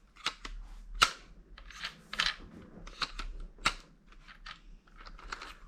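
A series of sharp plastic clicks and short rustles from handling a toy remote-control car and its remote, with two louder snaps about one second in and near four seconds.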